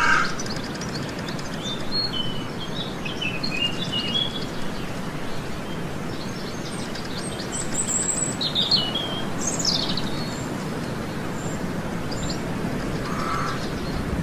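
Wild birds chirping and calling in short, scattered phrases over a steady background noise.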